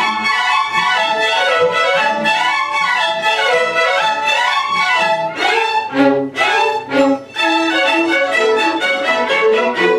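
Small string ensemble of violins and cellos playing a melody together, with two brief breaks in the sound about six and seven seconds in.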